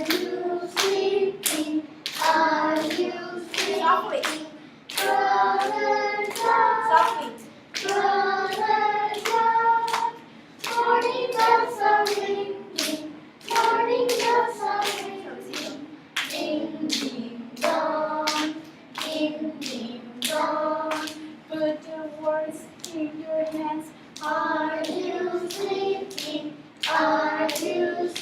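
A group of children singing a song together while clapping a steady beat.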